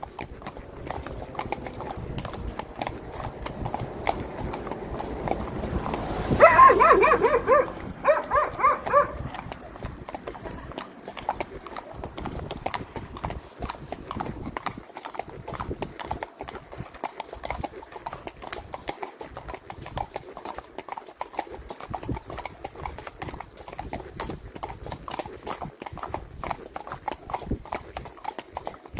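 Hooves of several horses walking on a paved road, steady clip-clop throughout. About six seconds in, a loud, wavering pitched call sounds three times in quick succession over a couple of seconds.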